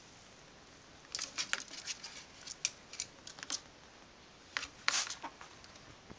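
Hand-held trigger spray bottle squirting water in quick hissing bursts: a rapid run of squirts, a pause, then a few more about four and a half seconds in.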